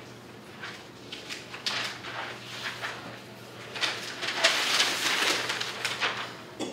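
Large flip-chart paper sheets rustling and crinkling as they are handled and flipped back over the easel pad, in short scrapes at first and loudest in one long sweep of paper about four to six seconds in.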